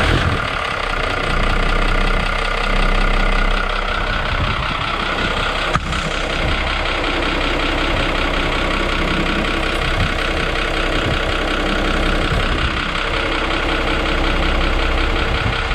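Isuzu FSR truck's diesel engine idling steadily, heard close with the cab tilted forward. It is running in neutral so the automatic transmission pumps its fluid round and the dipstick reads a true level.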